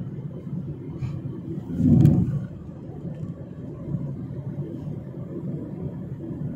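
Steady low rumble of road and engine noise heard inside a moving vehicle's cabin, with a brief louder swell about two seconds in.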